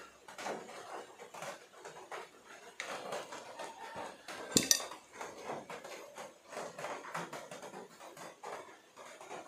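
Kitchenware being handled: soft scrapes and taps as batter is scooped from a glass mixing bowl and the silicone mold is handled, with one sharp ringing clink of the metal whisk against the glass bowl about halfway through.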